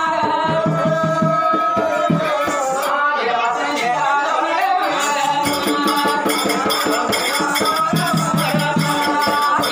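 A man sings a devotional folk song through a microphone and loudspeaker, with steady drum beats and the rhythmic jingling of the dancers' ankle bells. The bell jingling becomes steady and even about halfway through.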